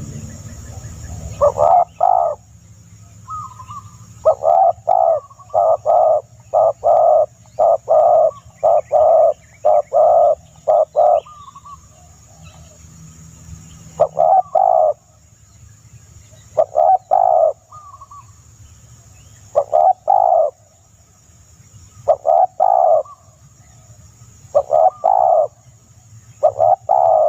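Bird calls: short low-pitched notes repeated in a quick run of about a dozen, then singly or in pairs every two to three seconds.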